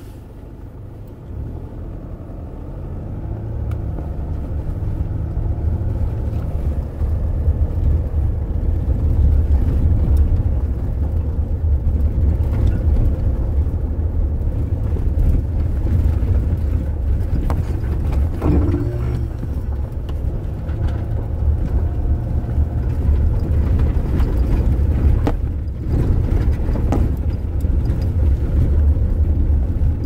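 Toyota Hilux/SW4 being driven, heard from inside the cabin: a low engine and road rumble that builds over the first several seconds as it picks up speed and then holds steady, with a few light knocks along the way. This is a test drive to check that the brake pedal clunk has gone after the pedal bushing was replaced.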